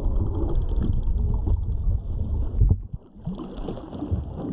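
Water splashing and rushing along the hull of a radio-controlled sailing yacht, with wind buffeting the deck-mounted microphone. There is a single louder thump about two and a half seconds in, after which the low rumble eases.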